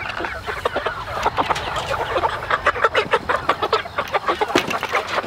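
A crowded flock of chickens in a coop clucking, many short calls overlapping at feeding time.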